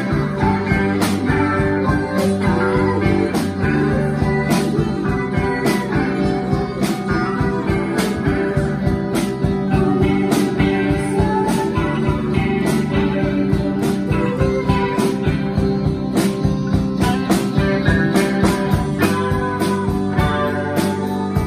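Rock band playing live: guitar and bass chords over a drum kit keeping a steady beat.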